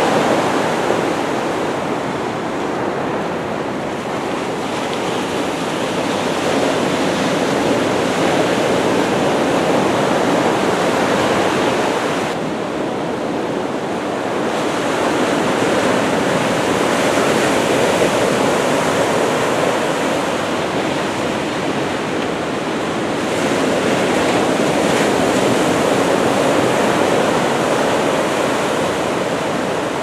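Ocean surf from a typhoon swell breaking and washing in: a steady rushing roar that swells and eases every several seconds.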